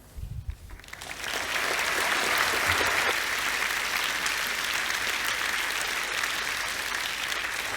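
An audience in a large hall applauding. The clapping swells over about the first second and then holds steady.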